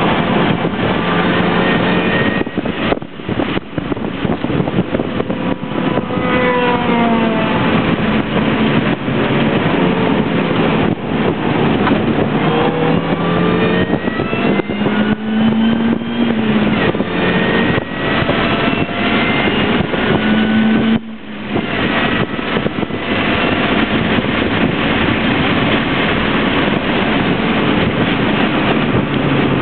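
A Mini Cooper's four-cylinder engine driven hard, heard from inside the cabin: its pitch climbs through each gear and falls back at the shifts, with two brief lifts off the throttle, over a steady rush of wind and road noise.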